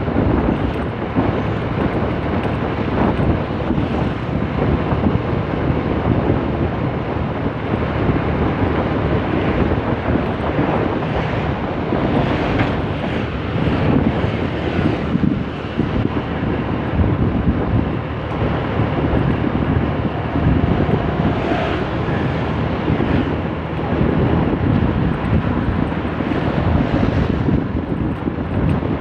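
Wind rushing over the microphone of a moving motorbike, over the bike's engine and tyre noise running steadily.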